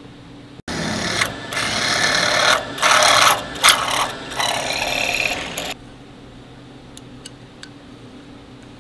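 A drill bit in a machine cutting through a metal tube held in a vise, with a loud, noisy cutting sound that dips and surges a few times. It starts about a second in and stops suddenly near six seconds in, followed by a few light clicks.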